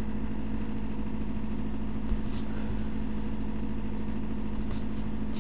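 A steady machine hum with a strong low tone throughout, and a few brief, faint scratches of a pencil on paper.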